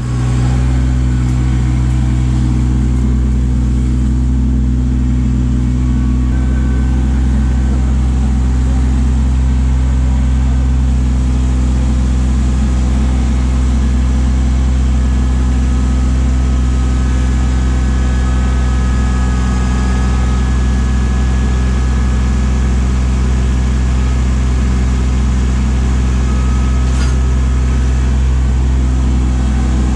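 Kubota LX2610 compact tractor's three-cylinder diesel engine running steadily at a constant speed, with no revving.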